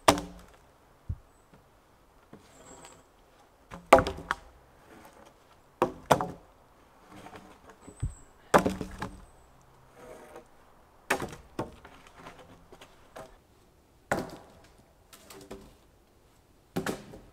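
Wooden logs knocking and thudding against each other as they are handled and dropped onto a pile, a hard wooden thunk every two seconds or so.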